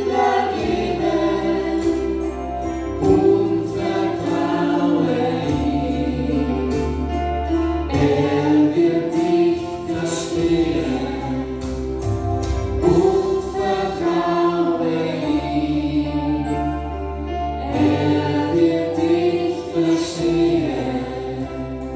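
A family group of men's, women's and children's voices singing a Christian hymn in German together, over electronic keyboard accompaniment with steady held bass notes.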